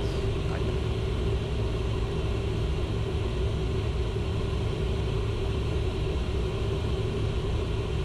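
Steady cockpit noise of a Learjet 60XR on approach: an even rush of air and jet engine drone with a steady hum through it.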